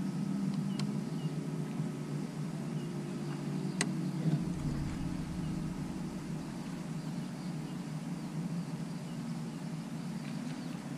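Bow-mounted electric trolling motor on a bass boat humming steadily, holding the boat along the docks. A sharp click sounds faintly under a second in and more loudly about four seconds in.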